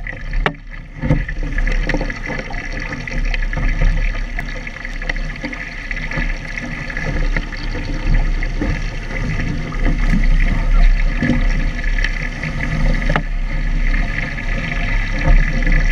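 Water rushing and splashing along the hull of a Phantom sailing dinghy under way in gusty wind, with a steady low rumble of wind on the microphone.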